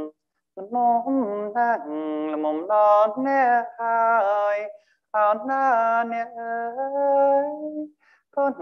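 A man singing a Cambodian hymn solo and unaccompanied, in long held notes that slide between pitches, in three phrases separated by short pauses.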